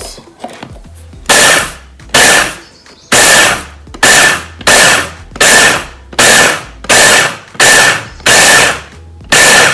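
Electric mini food chopper pulsed about eleven times in quick short bursts, its motor whining and blades chopping quick-cooking oats.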